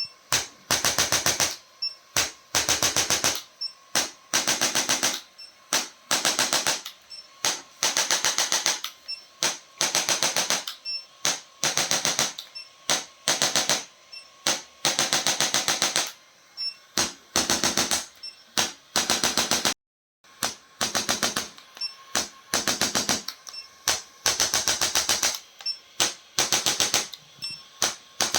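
Rapid rattling trains of sharp clicks in repeated bursts of about a second, with short pauses between them: a chiropractic adjusting instrument firing in quick succession.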